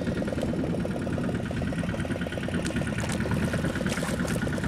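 Fishing boat's engine idling with a rapid, even beat. A few short water splashes in the second half as a large stingray is hauled up to the surface beside the hull.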